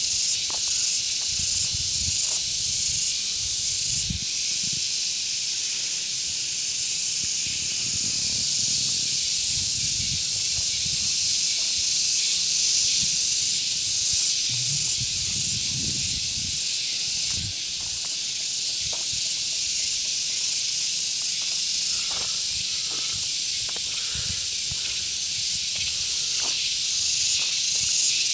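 Cicadas buzzing in a steady, high, hissing chorus that never lets up. Irregular low rumbles come and go on the microphone underneath.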